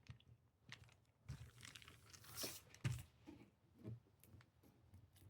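Faint crinkling and rubbing as hands press adhesive transfer tape down over rhinestones seated in a template, with a few soft clicks and swishes.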